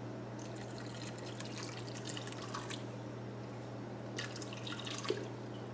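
Water poured from a plastic bottle into a crock pot of bean chili, trickling and splashing into the liquid. It comes in two spells: a longer one over the first few seconds and a shorter one past four seconds.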